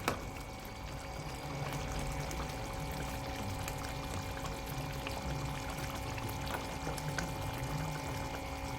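Pot of pork curry with potatoes simmering on the stove, bubbling and crackling steadily.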